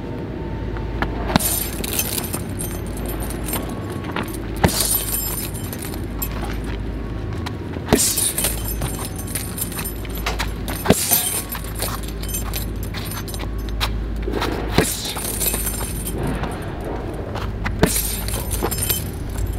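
Boxing gloves landing single right crosses on a chain-hung filled heavy punch bag: a sharp smack every two or three seconds, each followed by the hanging chain jangling.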